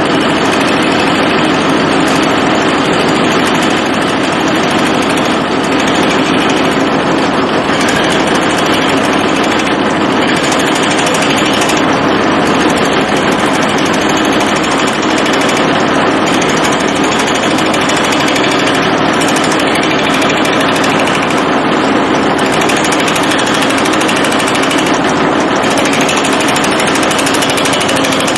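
Shopsmith running as a wood lathe, spinning an out-of-balance log blank with a lot of vibration: a loud, steady machine drone with a hum. The blank is off centre, so it bounces as it turns.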